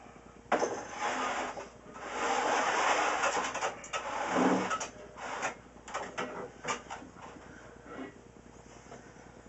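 Glass jugs and carboys being slid and set down on a wooden shelf: a scraping rub for a couple of seconds, then a series of knocks and clinks.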